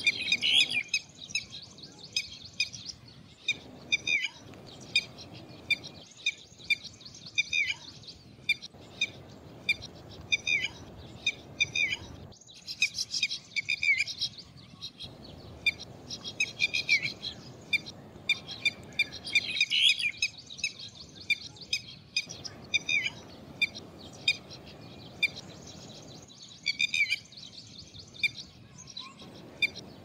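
Red-vented bulbuls calling: a steady string of short, sharp chirps, one or two a second, with quicker bursts of several at once now and then.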